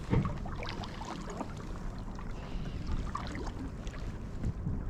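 Irregular knocks and clatter from kayaks and paddles being handled, with a sharper knock just after the start, over a steady rush of water and wind.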